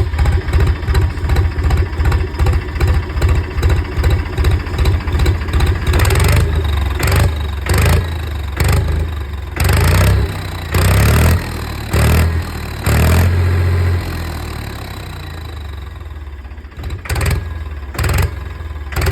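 Diesel tractor engine fitted with a turbo whistle in its exhaust silencer, revved in rapid short blips for the first few seconds, then in longer revs. A thin high whistle rides over the engine through the later revs.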